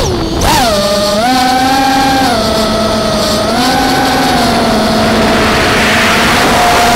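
ImmersionRC Vortex 250 racing quadcopter's brushless motors and propellers whining in flight. The pitch jumps up about half a second in as the throttle is punched, then holds with small steps up and down, and the rush of air grows louder near the end.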